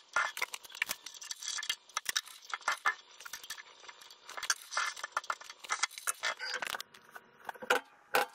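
Irregular metallic clinks and rattles of lathe tooling being handled as a boring bar is fitted and adjusted in a quick-change tool holder on the tool post.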